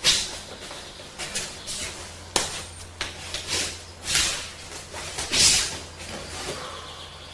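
Two people working a two-person karate kata: sharp slaps as strikes and blocks meet, one right at the start and another about two and a half seconds in, with shorter swishes and scuffs of moving arms, clothing and feet between them.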